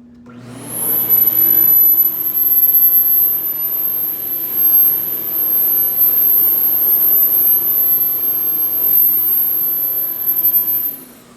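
Ridgid 6.5-horsepower, 16-gallon shop vac switched on and running loud, with a steady high whine, then switched off near the end, its motor winding down.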